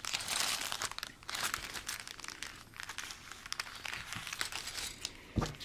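Thin clear plastic bag crinkling as it is handled and cut open with scissors, a continuous run of irregular crackles.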